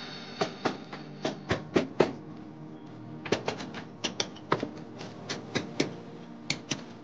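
Hammer blows on a chisel, chipping brick out of a grinder-cut wiring groove in a brick wall: irregular sharp knocks, about two a second, some with a short metallic ring.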